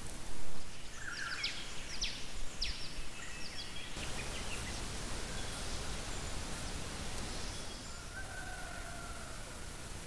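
Outdoor bush ambience with a quick series of short, sharp bird chirps over the first few seconds, then a steady hiss with a faint drawn-out call near the end.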